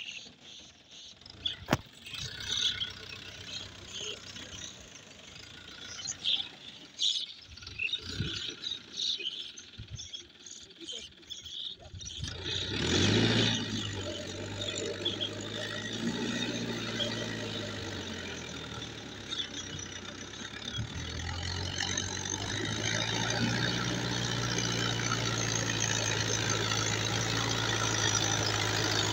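Mahindra Yuvo 575 tractor's diesel engine running while ploughing. It is faint, with scattered short clicks, for the first part, then comes up strongly a little before halfway as a steady hum that grows louder as the tractor approaches.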